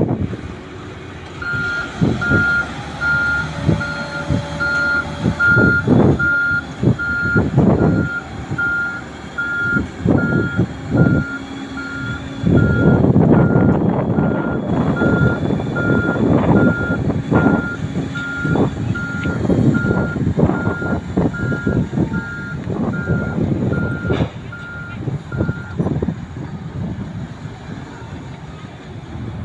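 Motor grader reversing: its back-up alarm beeps steadily at one pitch over the diesel engine running, with irregular knocks and rumbles. The beeping stops a few seconds before the end.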